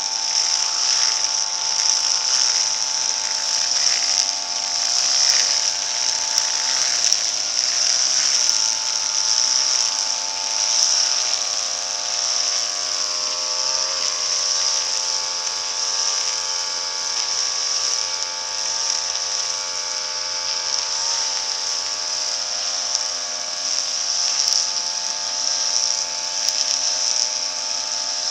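Backpack brush cutter engines running at high revs while cutting grass, a steady high-pitched whine whose pitch dips and recovers every few seconds as the cutting head swings through the grass.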